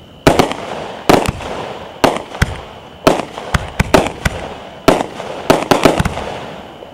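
Aerial fireworks going off in quick succession: more than a dozen sharp bangs at irregular spacing, one to three a second, each fading away before the next.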